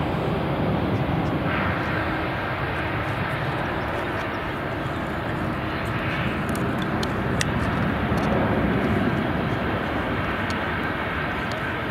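Boeing 747-400 jet engines running at low taxi power, a steady rumble with a faint high whine that comes in after about a second and a half.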